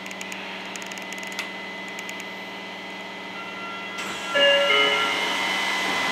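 Tokyo Metro Namboku Line subway train running, heard from aboard: a steady electric hum with light ticking. About four seconds in, the noise jumps louder, with whining tones that shift in pitch.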